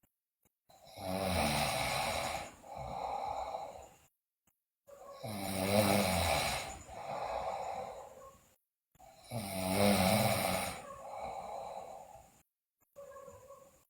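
A girl snoring loudly in her sleep: three breaths about four seconds apart, each a louder snore followed by a softer one, with dead silence between the breaths.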